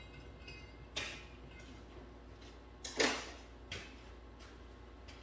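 A few separate knocks and clinks of metal parts or hand tools being handled off camera during work on an opened rear differential, the loudest about three seconds in.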